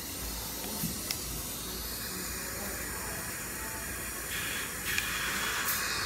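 Steady hiss, with two small sharp clicks about a second in as orthodontic pliers pop brackets off the upper teeth. A louder rush of hiss comes in about four seconds in and lasts about a second and a half.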